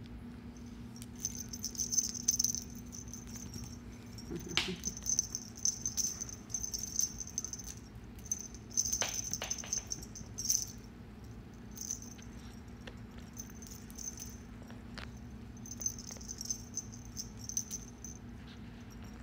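A kitten plays with a string wand toy, rattling and jingling it in irregular bursts as it bats and drags the toy, with a few sharper taps among them. A steady low hum runs underneath.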